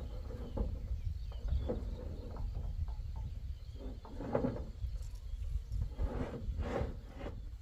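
A farm animal giving several short calls, the louder ones in the second half, over a low steady rumble.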